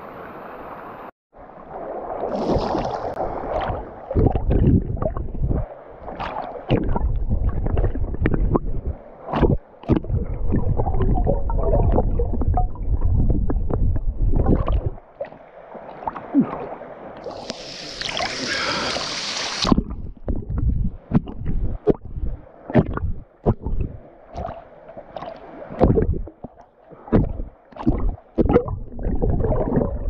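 Water sloshing and gurgling around a camera held at the waterline, its microphone dipping in and out of the water: muffled rumbling broken by sudden thumps and cut-outs. A little past halfway, about two seconds of brighter hissing splash.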